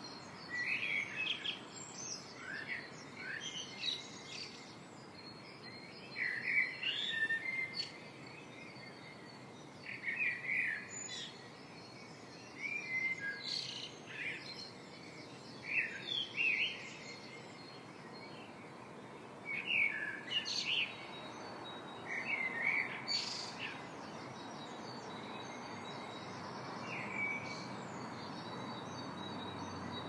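Sparrows chirping: short groups of quick chirps every couple of seconds, with a steady hiss behind them. The chirps stop a few seconds before the end, and the hiss grows louder.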